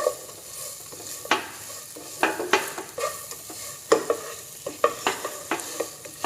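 A spoon stirring boiled chicken and spices in a frying pan of hot oil: irregular clinks and scrapes against the pan, about two a second, over a light sizzle.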